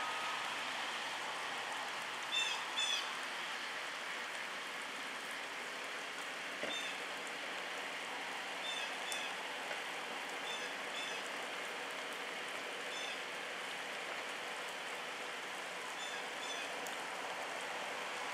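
Steady hiss of rain falling on a flooded road, with a bird giving short high chirps, often in pairs, every second or two.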